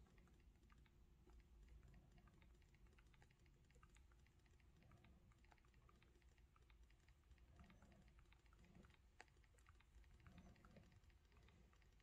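Faint, quick, irregular taps of two thumbs typing on the touchscreen of a Microsoft Surface Duo 2 phone, on its SwiftKey on-screen keyboard.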